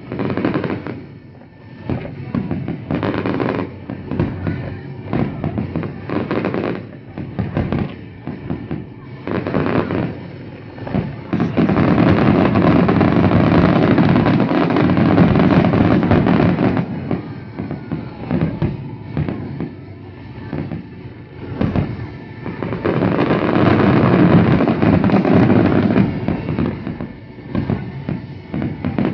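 Fireworks display: aerial shells bursting with a series of separate bangs. About a third of the way in, it builds into a dense barrage of rapid, overlapping bangs lasting about five seconds, and a second barrage comes near the end.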